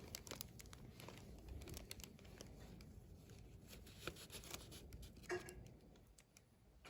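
Near silence with faint rustling and small ticks of a paper note being handled and unfolded.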